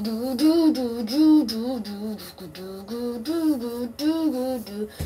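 A high voice singing a tune with no clear words, the pitch stepping up and down from note to note. It breaks off briefly about two and a half seconds in.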